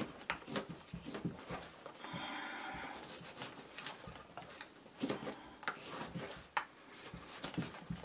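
A whittling knife slicing into damp wood in a run of short cutting strokes, with one longer shaving cut about two seconds in.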